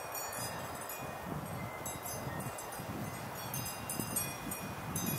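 High, thin tinkling chime tones that ring in scattered clusters over a steady rush of wind noise, with gusts rumbling on the microphone.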